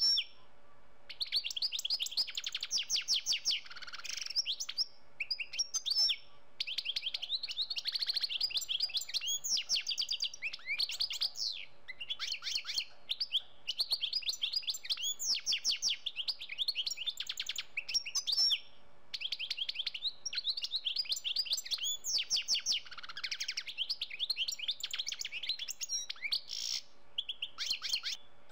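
Small songbirds singing: long runs of fast, high chirping trills, broken by short pauses.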